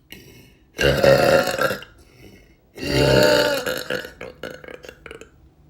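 A woman burping loudly twice, each burp about a second long and about two seconds apart; the second trails off into a few small clicks.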